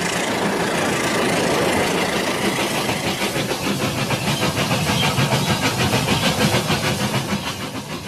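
Battery-powered toy trains running on plastic track, small motors whirring and wheels clattering. From about three seconds in the clatter settles into a fast, even rhythm.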